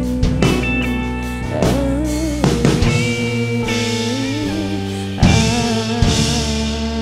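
Instrumental band music without singing: held, wavering guitar notes over bass and drums, with a couple of strong drum hits near the end.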